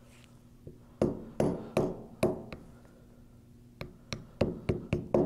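Mallet tapping on a metal paint-sprayer pump assembly: about eleven sharp strikes in two runs, five roughly every half second starting about a second in, then six quicker ones near the end, each with a short metallic ring.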